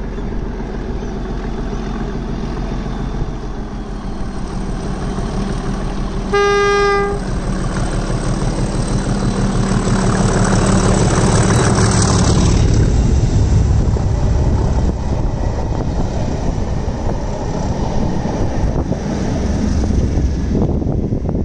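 Colas Rail Class 37 diesel locomotive, with its English Electric V12 engine, running as it approaches with the test train. It sounds one horn note for about a second about six seconds in, then passes close by loudly, engine and wheels on the rails, and the sound eases off as it draws away.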